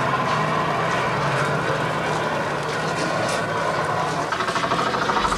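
Street noise with a vehicle engine running, a steady low hum; from about four seconds in it turns into a fast, even pulsing.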